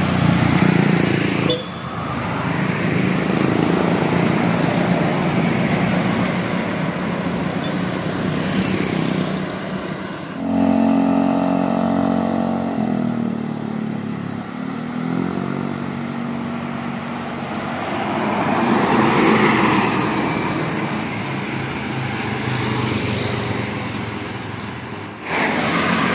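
A motor vehicle running, with traffic-like noise. The sound changes abruptly three times: about a second and a half in, about ten seconds in, and near the end.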